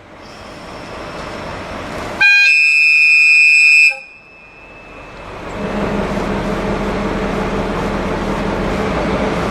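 A train horn sounds one loud blast of about a second and a half, about two seconds in, over the rumble of an approaching train. After the horn, the diesel train's running noise and engine hum build up and hold steady.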